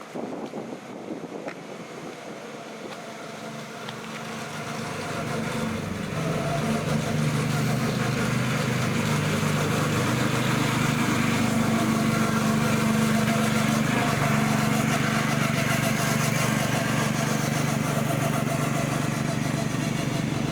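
A vehicle's steady engine or motor hum that swells over the first several seconds and then holds steady.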